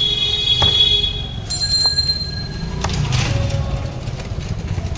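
A bell rings in two sustained metallic rings, the second with a different, higher set of tones and cutting in as the first stops, ending about three seconds in. A knife chops sharply on a wooden block a couple of times over a steady low rumble of street noise.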